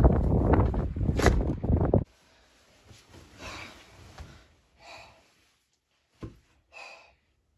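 Loud music that cuts off abruptly about two seconds in, followed by faint breaths and rustles from a person settling onto a leather sofa, with one soft knock near the end.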